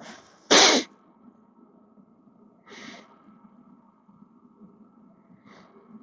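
A man sneezes once, sharply, about half a second in. Two quieter breathy bursts follow, near the middle and near the end.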